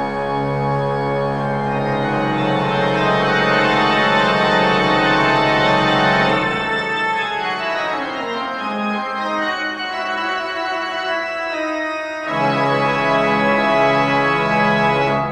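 Background music of sustained organ chords. The low bass notes drop out about halfway through and come back near the end.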